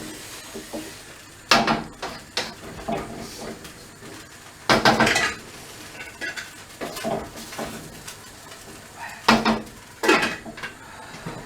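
Metal cooking utensil clanking and scraping against a pan while stir-frying noodles: a handful of separate loud knocks and scrapes spread through, with a low steady background between them.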